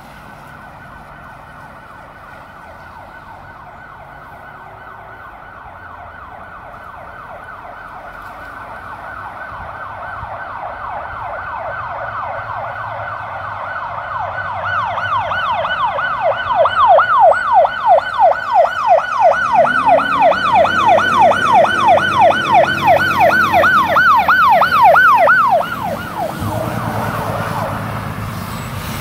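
Fire truck's siren on a fast yelp, about three sweeps a second, growing steadily louder as the truck approaches, then cut off suddenly about 25 seconds in. The truck's engine is heard underneath as it passes close by.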